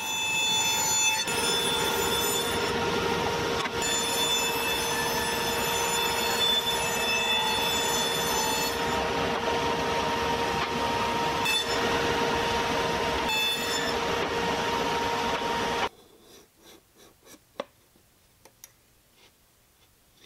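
Table saw running with a steady whine while plywood drawer parts are crosscut on a sled. The saw sound stops abruptly about four seconds before the end, leaving a few faint clicks and taps.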